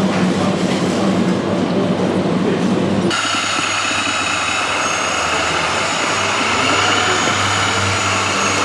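Radio-controlled model construction trucks running: a steady mechanical hum, which changes abruptly about three seconds in to a higher steady whine.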